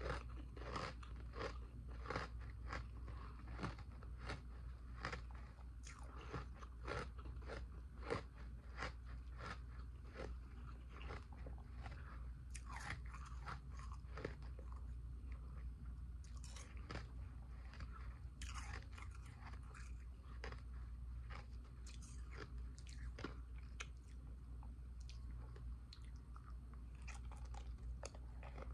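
A person biting and chewing ice close to the microphone: a quick run of crisp crunches, denser in the first half and more spaced out later on.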